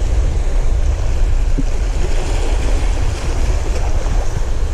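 Wind buffeting the microphone over the steady rush of surf, with a heavy low rumble.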